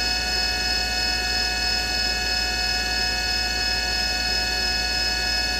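Fadal VMC 8030 HT's CAT 50 spindle running steadily at 4,000 RPM during a spindle speed run-up test: a steady whine of several high tones over a low hum.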